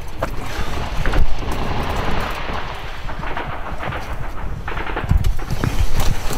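Rough rustling and scraping from a body-worn camera rubbing against grass, dirt and clothing as the wearer moves close to the ground, with a few sharp knocks over a low rumble.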